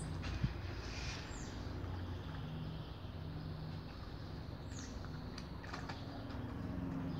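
Quiet outdoor ambience: a steady low hum, two brief high chirps falling in pitch about a second and five seconds in, and scattered light clicks.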